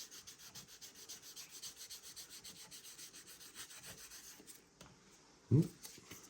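A 3000-grit sanding sponge, wet, rubbed in quick short back-and-forth strokes over a painted plastic model car body to cut back red overspray. The strokes stop about four and a half seconds in, and a brief loud vocal sound follows a second later.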